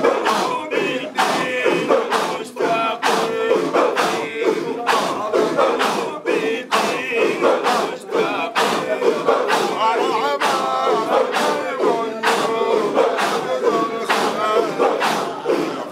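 A crowd of voices chanting or singing together to a steady, regular beat.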